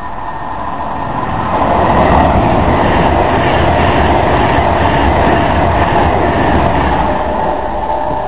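Class 390 Pendolino electric train passing through at speed: a rush of wheel and air noise that swells over the first second and a half, carrying a steady whine, with a run of sharp clicks from the wheels two to four seconds in, then easing slightly as the train draws away.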